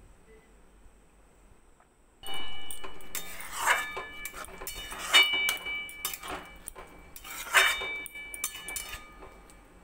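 Metal spatula stirring a thick vegetable curry in a steel kadai, scraping and knocking against the pan so that it rings. The stirring starts about two seconds in, with a few louder clanks.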